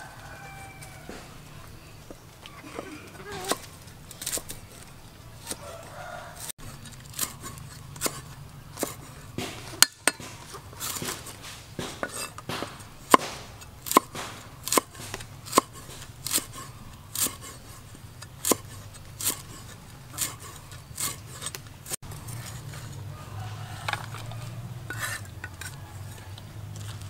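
Meat cleaver chopping lemongrass stalks on a round wooden chopping block: a long run of sharp knocks, about one or two a second, strongest in the middle and dying away a few seconds before the end.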